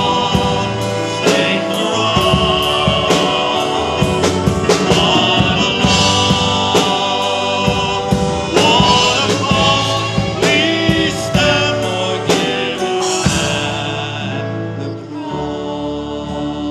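Gospel worship song: voices singing over a band with a drum kit. The drums and full band stop about thirteen seconds in, leaving softer sustained instrumental music.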